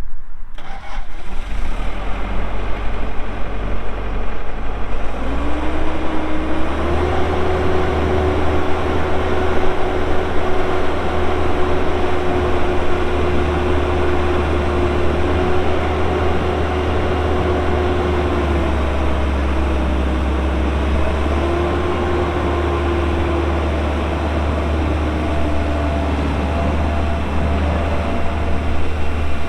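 Case CX160 excavator's 110 hp Cummins diesel engine running; it speeds up about six seconds in and holds a steady higher pitch, with its pitch sagging briefly a couple of times later on.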